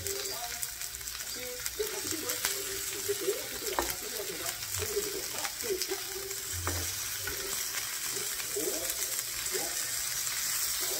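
Pork belly sizzling on a grill pan, with occasional sharp clicks of kitchen scissors and metal tongs as the meat is cut.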